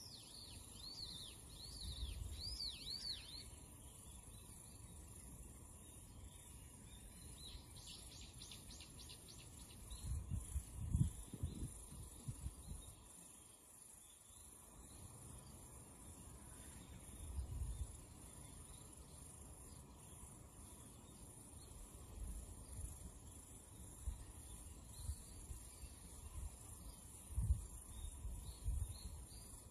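Faint handling of spiny lobster pieces on a plastic cutting board, with scattered dull knocks, the loudest about ten seconds in. A bird gives a quick repeated chirping call at the start, over a steady high hiss.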